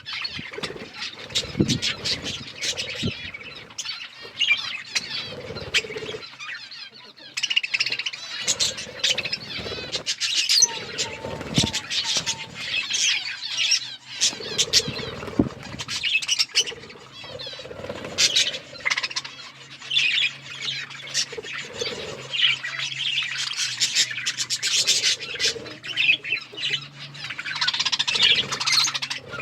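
A flock of budgerigars chattering and chirping continuously, with quick warbling calls, squawks, wing flutters and small scuffling clicks.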